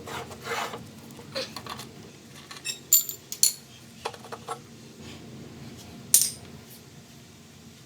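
Metal tools and small-engine parts clinking and scraping as they are handled and set down. There are scattered light knocks and a few sharp ringing metallic clinks, the loudest about three seconds in and about six seconds in.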